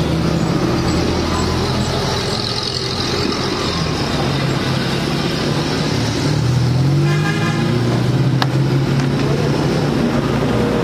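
Road traffic running steadily, with an engine revving up about two-thirds of the way through and a short horn honk at about the same time.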